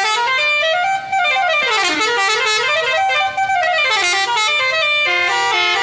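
Basuri 'telolet' musical bus horn playing a melody, its notes stepping and gliding up and down almost without pause.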